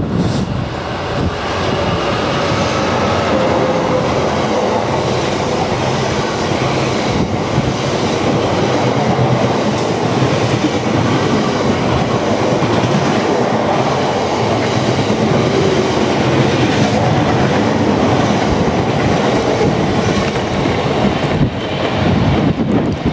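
Colas Class 66 diesel locomotive, with its two-stroke V12 engine, passing at speed, followed by a long rake of loaded coal hopper wagons. The wagons make a steady, loud rumble and clickety-clack over the rails.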